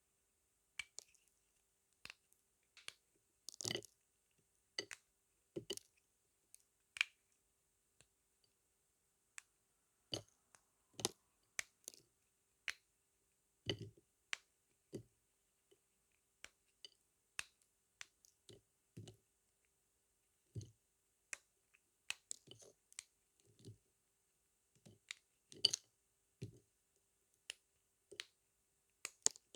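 Blade cutting through dry soap: short, crisp clicks and cracks at irregular intervals, with silence between cuts.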